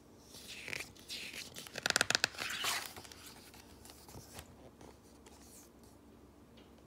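A page of a paper picture book being turned by hand: a soft paper swish with a quick run of sharp flapping clicks about two seconds in, then a few faint ticks as the page settles.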